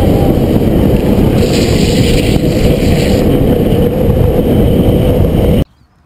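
Loud, steady wind and road rush from a camera moving fast down a paved road during a downhill longboard run. A higher hiss swells about a second and a half in and fades near the three-second mark. The noise cuts off abruptly near the end.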